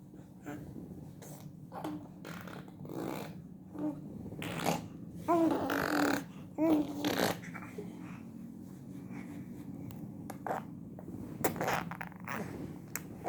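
A small child imitating a car engine with their mouth, blowing buzzy lip-trill "brrm" noises in short, irregular bursts, the loudest ones in the middle sliding up and down in pitch.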